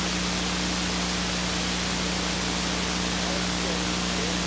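Steady hiss with a low, constant electrical hum: the blank sound track of an old analog videotape.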